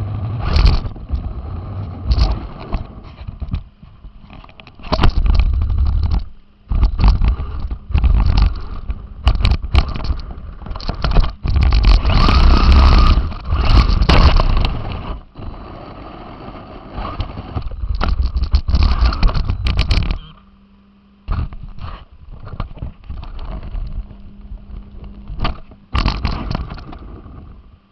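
Radio-controlled car driving over rough ground, heard through its onboard camera: drivetrain noise in surges with frequent knocks and scrapes as it bounces. Near the end it drops to a steady low hum, broken by a few more knocks.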